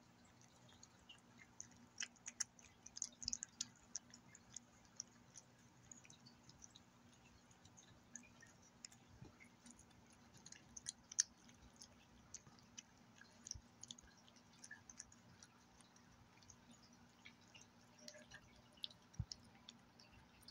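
Gray tabby cat eating wet trout and tuna paté from a bowl: faint, irregular wet clicks and smacks of licking and chewing, busiest a couple of seconds in, with the sharpest click about halfway.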